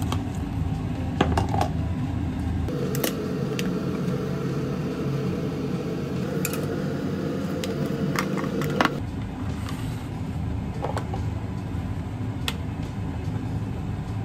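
Glass food containers handled on a kitchen counter: scattered clicks and taps, with a cluster of sharp snaps about eight seconds in as the clips of a snap-lock lid are pressed shut. A steady low hum runs underneath.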